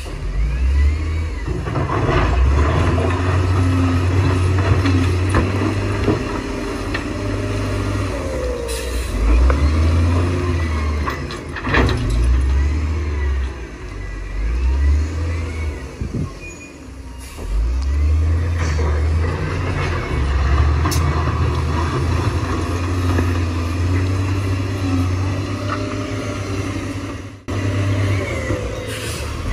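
Heavy diesel engines of a bulldozer and a dump truck labouring through a recovery, revving up and down in repeated surges. Wavering metallic squeals and a few sharp clanks run over the engines.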